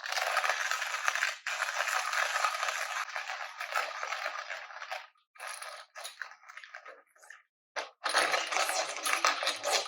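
Hario MSS-1 hand grinder's ceramic burrs crushing coffee beans as the crank is turned: a dense crunching grind for about five seconds, then a few scattered crackles, then another stretch of steady grinding near the end.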